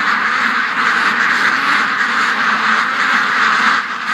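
A large flock of domestic ducks quacking together in a loud, dense, unbroken chorus, stirred up by a dog running among them.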